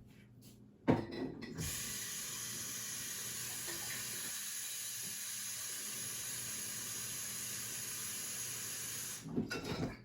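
Water running from a tap into a container: a knock as the tap opens about a second in, then a steady hiss of flowing water that stops abruptly near the end, followed by a few clatters.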